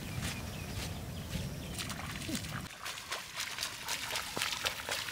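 Footsteps of several barefoot people, first on dry earth, then, a little past halfway, splashing as they wade through shallow water, with short sloshing steps.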